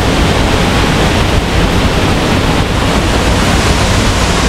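Waterfall pouring: a loud, steady rush of falling water close by.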